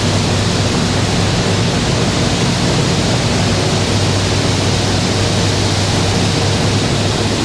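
Steady, loud factory-floor machinery noise: a dense hiss with a low hum underneath.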